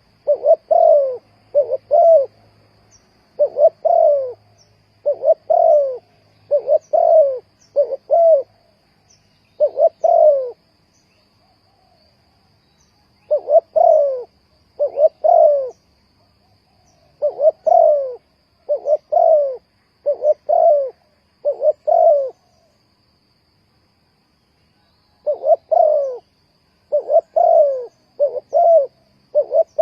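Spotted dove cooing: short, low coos, mostly in pairs or threes, repeated phrase after phrase, with two longer pauses of about three seconds.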